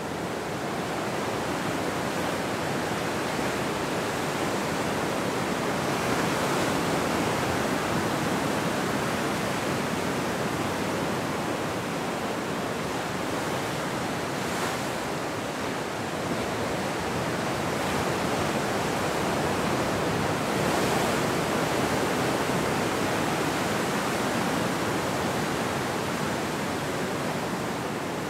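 Ocean surf breaking and washing in, a continuous rushing wash that swells a little about six seconds in and again about twenty seconds in.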